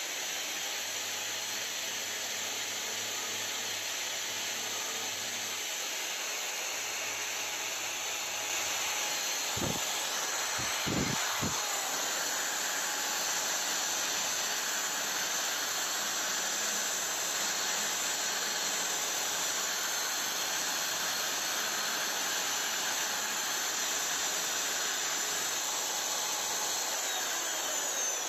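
Electric drill with a sanding drum attachment running steadily against ABS plastic, sanding the weld seam on a motorcycle side panel flush. There are a few light knocks about ten seconds in.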